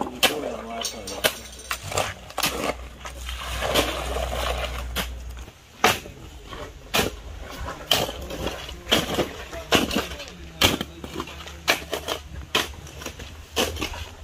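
Steel shovels scraping and chopping through a wet sand, gravel and cement mix on the ground, with sharp scrapes and knocks of the blades on stones, irregularly and often more than once a second. This is concrete being mixed by hand.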